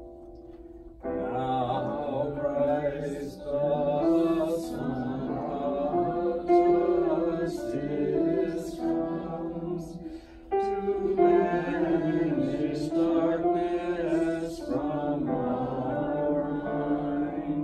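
A small group singing a hymn in chant style together, accompanied on a digital piano. A held piano chord fades before the voices come in about a second in; the singing breaks off briefly around the middle and then resumes.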